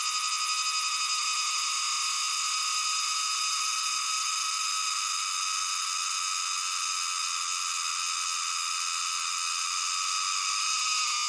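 Platylomia pieli cicada singing one unbroken, steady, high buzzing drone, the grating sound likened to metal being shaved or ground.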